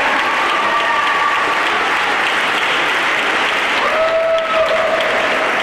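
Audience clapping steadily, with a few held tones over the clapping; the clearest begins about four seconds in.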